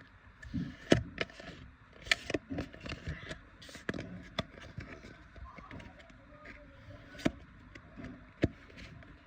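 Pokémon trading cards and their foil pack being handled: irregular rustling and scraping of cards sliding against each other, with several sharp clicks and taps.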